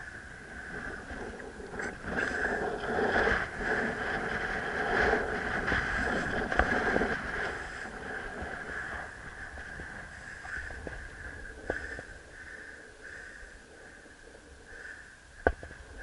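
Wind buffeting the microphone in uneven gusts, strongest in the first half and then easing, with a steady high whistle running beneath. A few sharp knocks come near the end.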